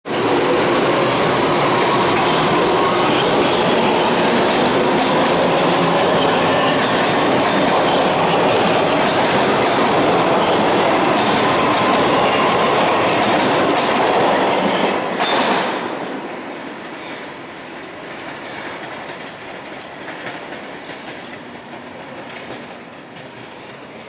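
Toronto subway train passing close by at speed, a steady loud roar with wheels clacking over rail joints. About fifteen seconds in, the sound drops sharply and fades as the train draws away.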